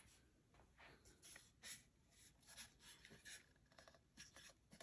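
Near silence with faint, scattered rustles and light taps of hands turning over a plastic dome security camera.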